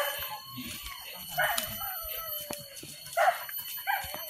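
Hunting dogs giving short yelps and barks about four times while working the undergrowth on a wild boar hunt, over a steady high-pitched drone.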